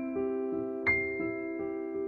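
Slow piano music: held notes ringing on, with a new note struck a little under a second in.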